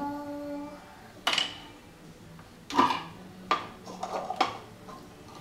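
Hollow plastic stacking cups clacking against each other and on a hardwood floor as a toddler handles them: about five separate knocks a second or so apart, after a short hum from the child.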